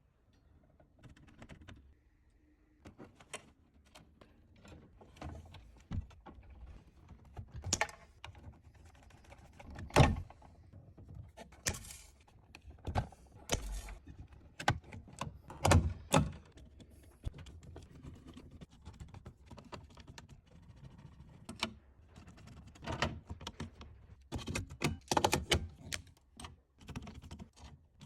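Irregular light clicks and knocks of small hard objects being handled, with a sharper knock about ten seconds in and another about sixteen seconds in, and a quick cluster of clicks near the end.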